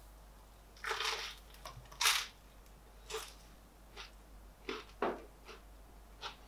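Toasted-bread bruschetta being bitten and chewed: a run of short, crisp crunches at uneven intervals, the loudest about two seconds in.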